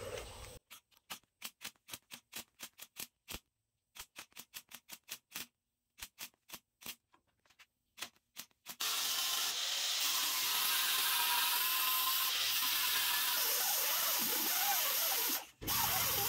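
MIG welder firing a quick series of short spot-weld bursts, about two a second, filling small holes in a sheet-steel dash panel. Then a steady harsh hiss for about seven seconds. Near the end, after a cut, a sanding disc on a handheld grinder smooths the filled welds.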